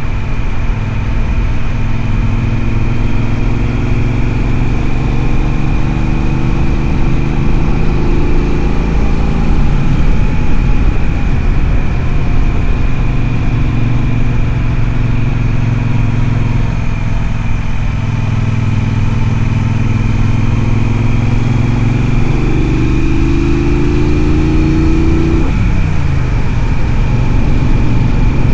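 Triumph Speedmaster parallel-twin engine running under way, its pitch rising slowly several times as the throttle is held open, the last rise cutting off suddenly near the end.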